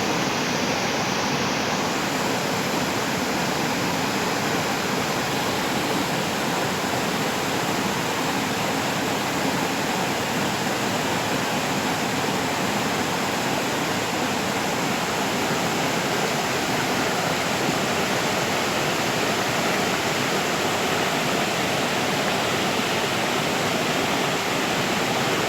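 River water rushing steadily, a loud even roar of flowing water.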